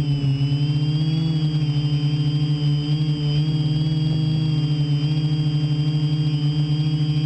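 TBS Discovery quadcopter's brushless motors and propellers whirring as it hovers, heard from its onboard camera: a steady droning hum whose pitch wavers slightly.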